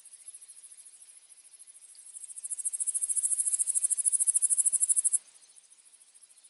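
Insect trilling: a rapid, very high-pitched pulsing that grows loud about two seconds in and stops abruptly a few seconds later, over fainter trilling of other insects.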